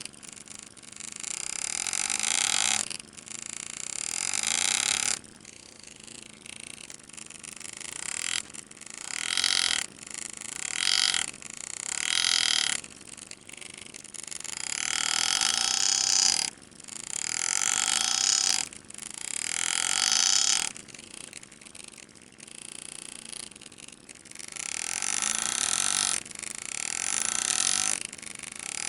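Pneumatic engraving handpiece driving a graver into the steel receiver in repeated bursts of a second or two. Each burst rises in loudness and then stops, with short pauses between cuts.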